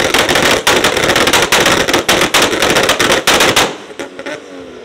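Toyota Supra's 2JZ straight-six held on a 2-step launch limiter: a rapid, rattling string of exhaust pops and bangs for a little over three seconds. It cuts off as the revs fall away.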